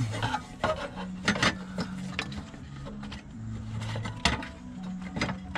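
Hands fitting plastic parts on a diesel fuel filter: scattered sharp clicks and taps with rubbing of plastic, as a second clip is snapped into place.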